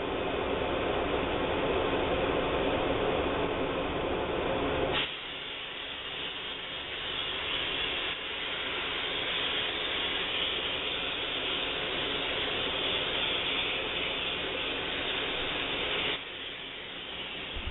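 Optima DMF steam cleaner running with a low mechanical rattle. About five seconds in, after a click, a steady hiss of steam spraying from the wand takes over, and it stops about sixteen seconds in.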